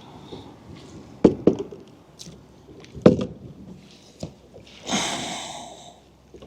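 Several sharp hollow knocks of gear against a fishing kayak, two close together, then two single ones, followed about five seconds in by a short rushing noise.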